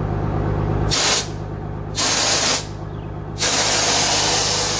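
Air suspension of a Mercedes-Benz O-364 bus venting air in three hisses: a short one about a second in, another around two seconds, then a long steady hiss from about three and a half seconds. The bus body is being lowered on its air bags.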